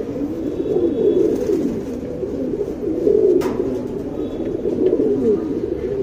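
Domestic pigeons cooing without a break, several calls overlapping, with a single sharp click about three and a half seconds in.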